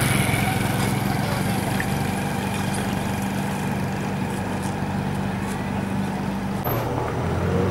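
An engine idling steadily, an even low hum.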